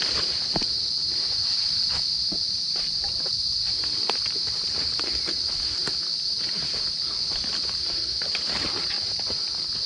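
A steady, high-pitched chorus of forest insects, with footsteps and scattered snaps and rustles of people brushing through dense undergrowth.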